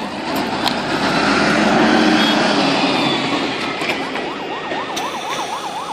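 Traffic noise swelling as a vehicle passes close by. Then, about four seconds in, an emergency vehicle's siren starts a fast yelp, wailing up and down about four times a second.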